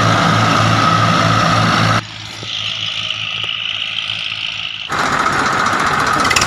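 Massey Ferguson 1035 DI tractors' three-cylinder diesel engines running hard under load in a tractor tug-of-war, with a pulsing low beat. About two seconds in the engine sound drops away abruptly to a quieter, steady high-pitched hum. A diesel tractor engine comes back in loudly near the end.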